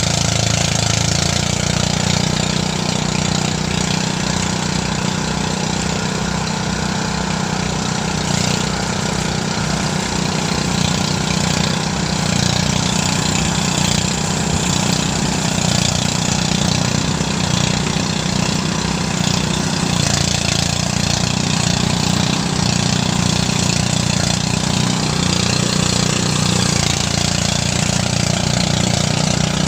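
Motorized rice thresher running steadily: a low, even engine beat under a constant rushing noise.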